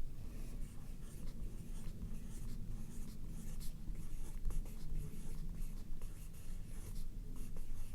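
Mechanical pencil with Pentel high polymer lead writing on paper: a steady run of quick, light scratching strokes.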